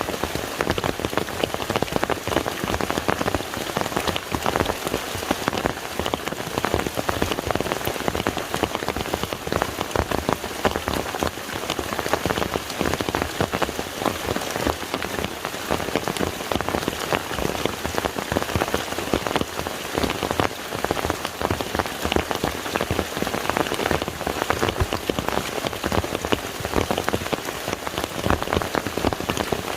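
Steady rain falling on a lake's surface: a dense, even patter of countless drops.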